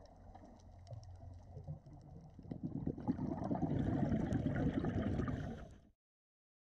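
Underwater, a scuba diver's exhaled regulator bubbles bubbling and gurgling loudly past the camera, starting about two and a half seconds in and cutting off abruptly near the end. Before that, only a faint low hum with light clicks.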